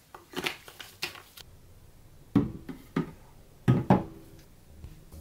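Short clicks and scrapes of a plastic cap being handled on a resin bottle, then several knocks as the red acrylic UV cover is set down over an Elegoo Mars resin 3D printer.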